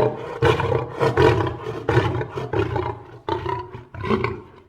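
Lion roaring in a series of short deep roars, about one every three-quarters of a second, growing weaker as the series goes on.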